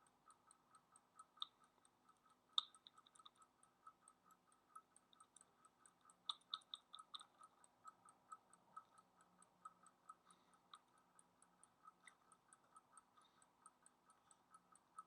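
Faint, even ticking at about three and a half ticks a second, with a few sharper, louder clicks scattered among it, the loudest about two and a half seconds in and a cluster around six to seven seconds.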